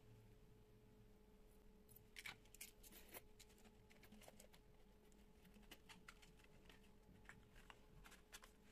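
Faint, quick clicks and taps from handling a small plastic jewelry display box and a metal chain bracelet, starting about two seconds in, over a faint steady hum.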